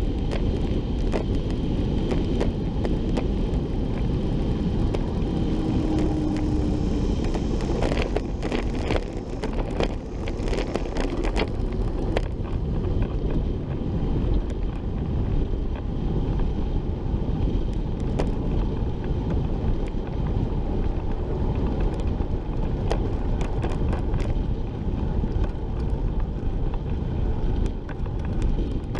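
Steady wind rush on the microphone of a camera riding on a moving recumbent trike, mixed with road noise from its tyres. A run of sharp clicks about a third of the way in.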